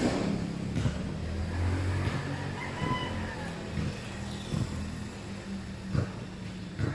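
Kyosho MK1 RC motorcycle running on its test run, a steady hum with several sharp knocks.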